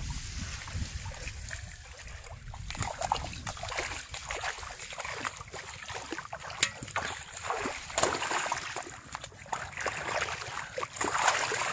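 Shallow muddy floodwater splashing and sloshing as hands dig and grope through it, with many irregular small splashes.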